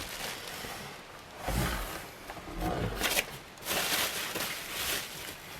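Handling noise from unboxing: packaging and parts rustling and scraping, with a low thump about one and a half seconds in and a sharp click near the middle.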